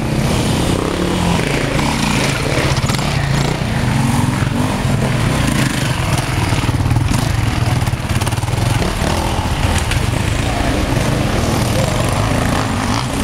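Enduro dirt bike engine running hard under load as the bike climbs a dirt trail and passes close by.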